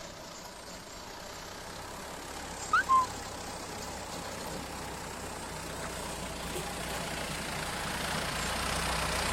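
Steady low rumble and hiss of a running motor, growing gradually louder, with a short rising chirp about three seconds in.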